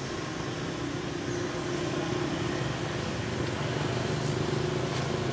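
Steady low motor hum, like an engine running at a constant speed, over general outdoor background noise.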